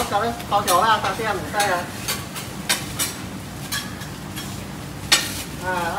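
Oyster omelette sizzling in a wok, with the metal spatula scraping and clinking against the pan again and again as it is stirred and turned. A voice talks over it in the first two seconds.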